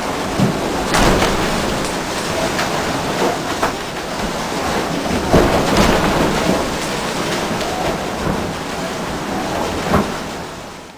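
Sailing catamaran in rough seas heard from inside its cabin: a steady rushing rumble of water against the hulls, broken by sharp knocks and slams as waves hit the boat, about a second in, around five and a half seconds and again near the end. The sound fades out at the very end.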